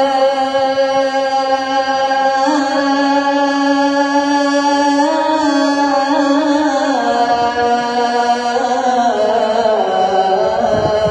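A muezzin chanting the adhan (Islamic call to prayer): one long, unbroken melismatic note drawn out over the close of 'hayya ʿala-s-salah', its pitch stepping slowly up and down a few times.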